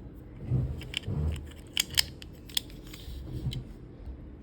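Small plastic parts of a toy pistol being handled, making a series of sharp clicks and a few soft knocks.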